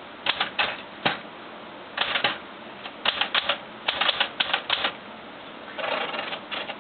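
Keys of an SCM Smith-Corona Classic 12 portable manual typewriter being typed in short, quick bursts of sharp clacks with brief pauses between, and a scratchier run of strokes near the end.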